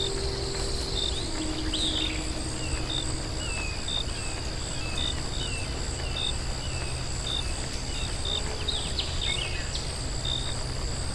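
Night rainforest ambience: a steady high insect trill with a faster pulsing insect call above it and short chirps repeating about once or twice a second, scattered short falling calls, over a low rumble.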